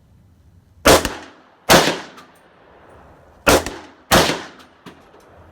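Gunshots from a Glock 19 pistol and a 300 Blackout AR rifle: four loud shots in two pairs, each trailing off in a short echo, with a faint pop near the end.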